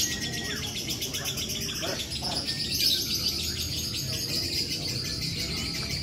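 Caged lovebirds chattering: a continuous stream of rapid, high-pitched chirps that keeps going without a break.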